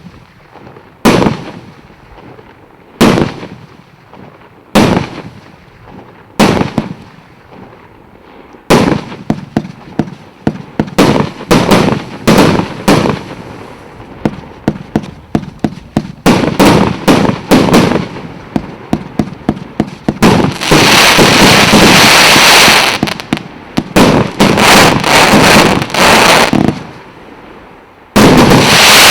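36-shot, 1.2-inch-calibre consumer firework cake (Premium 36 battery) firing: single shots about every two seconds at first, then fast volleys of shots from about nine seconds in. Around two-thirds of the way through the shots merge into an unbroken stretch a couple of seconds long, and a loud shot comes near the end.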